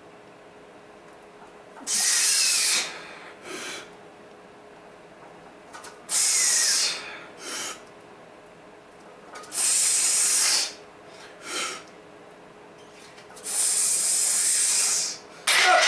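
A lifter breathing hard and forcefully: four long hissing exhales about four seconds apart, each followed by a shorter breath.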